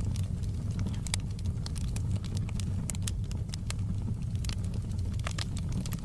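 Wood fire burning in a fireplace: a steady low rumble of flames under frequent, irregular sharp crackles and pops from the burning logs.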